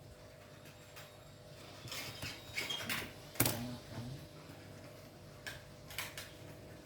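Light clicks, taps and short scrapes of small tools and parts being handled on an opened Lenovo ThinkPad X240 laptop, bunched in the middle with one sharper click, then a couple of single clicks near the end.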